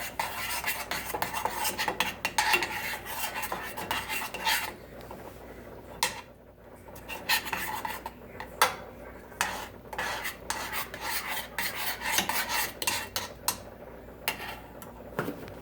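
A spoon stirring and scraping a thickening cornstarch and sweetened condensed milk mixture in a saucepan. A dense run of scraping lasts the first few seconds, then gives way to scattered scrapes and knocks.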